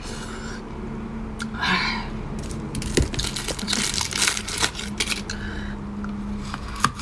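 Chewing on frozen food, then aluminium foil crinkling and crackling sharply in the middle as a foil-wrapped frozen egg is unwrapped by hand.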